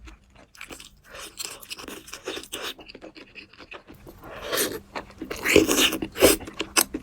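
Close-up eating sounds: crisp chewing and crunching with short clicks, growing louder and busier in the second half.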